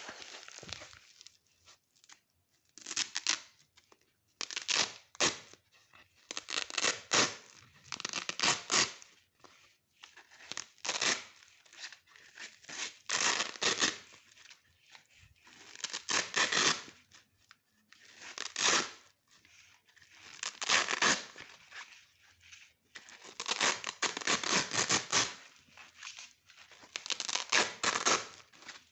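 Velcro hook-and-loop fastener being ripped apart over and over, each pull a short crackling rasp, with brief quiet gaps between pulls.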